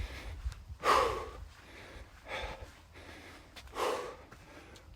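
A man breathing hard, winded from shuttle sprints: three heavy, breathy exhalations about a second and a half apart, the first the loudest.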